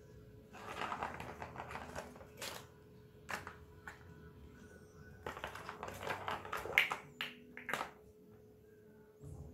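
Plastic ball rattling and clicking inside a plastic ball-track cat toy as a kitten bats at it, in irregular bursts of clatter: one about a second in and a longer one past the middle.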